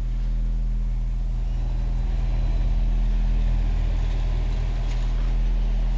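Box truck's engine idling steadily with a low, even hum.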